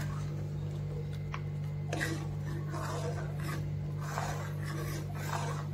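Steel ladle scraping across the bottom of a pan, with repeated strokes about once a second, as milk with crumbled mawa is stirred while the mawa dissolves.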